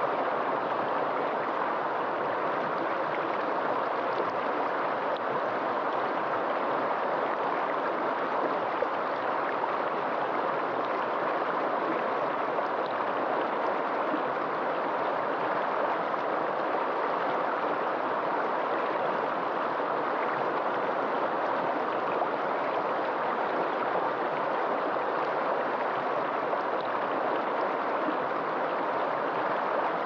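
River water rushing over rocks in fast, high, muddy rapids: a steady, unbroken rush of flowing water.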